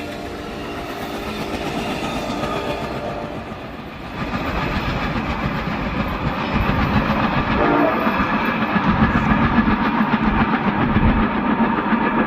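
Two CSX locomotives and a track geometry train passing close by: engine and wheel noise on the rails swells about four seconds in and stays loud. There is a short horn tap about eight seconds in.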